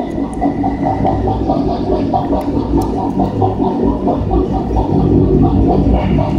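High-pressure sewer jetter running steadily, its rotating Warthog nozzle spraying water through an 8-inch sewer line to clear roots and grease, with a rapid rhythmic pulse to the sound.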